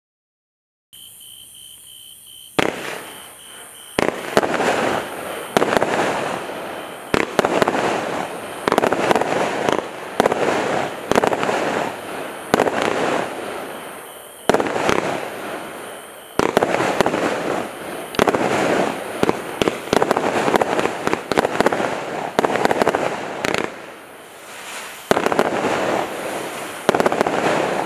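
X-Cite 'The Mad Professor' consumer firework cake firing, starting about two and a half seconds in. It gives a rapid string of tube launches and aerial bursts that swell and ease off in several waves.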